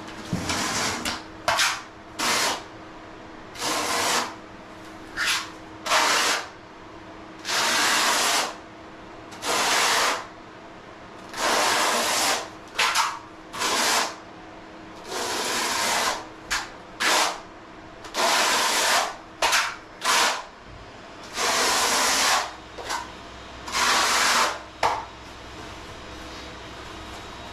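Notched steel trowel scraping tile mortar across the floor in repeated strokes, each lasting about half a second to a second and a half with short pauses between them.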